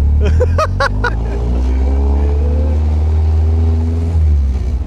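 Lotus 7's engine pulling away in first gear, its pitch climbing for about three seconds and then easing off near the end, over a steady low rumble. A quick run of about five short chirps sounds in the first second.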